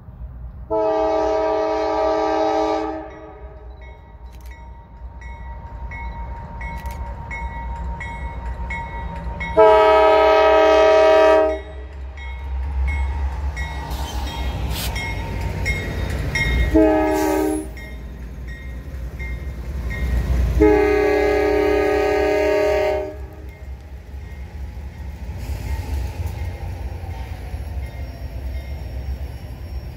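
A diesel locomotive's multi-note air horn sounds four blasts in the pattern long, long, short, long, the standard grade-crossing signal. Under the horn is the low rumble of the locomotive's engine and wheels, loudest as the train passes about halfway through.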